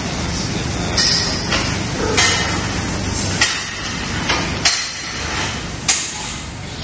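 Sows in metal gestation crates knocking against the steel bars and feed troughs as they eat: sharp metallic clanks, about six of them, over the steady drone of the barn's ventilation fans.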